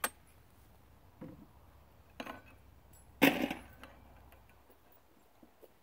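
A few sharp knocks and clacks from shotguns being handled, the loudest about three seconds in.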